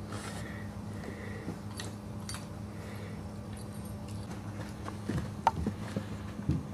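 Boxer puppies and an adult boxer scuffling and padding about on a mat in a wire playpen: scattered light taps, knocks and small jingles of collar hardware, a few louder knocks near the end, over a steady low hum.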